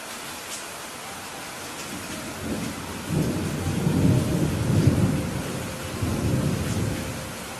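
Steady heavy rain with a long roll of thunder that builds from about two seconds in, peaks in the middle and rumbles away near the end.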